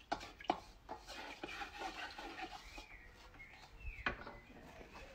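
A wok being scraped and scrubbed out while it is rinsed, a run of short rubbing strokes in the first second or so. There is a sharp knock of the pan or tool about four seconds in.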